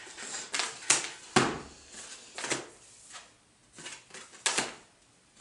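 Picture cards being handled and set down into a plastic sorting case on a table: a few separate sharp taps and papery slides, the loudest about a second and a half in and again about four and a half seconds in.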